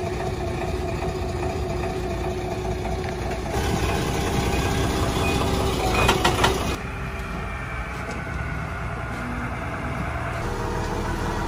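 A motor vehicle's engine running steadily, its background changing abruptly a few times, with a brief louder clatter about six seconds in.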